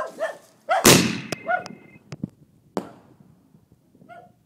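Consumer firework artillery shell launching from its mortar tube with a loud bang about a second in, the sound dying away slowly, then a sharper, lighter crack about two seconds later as the shell bursts in the air. A dog barks through it.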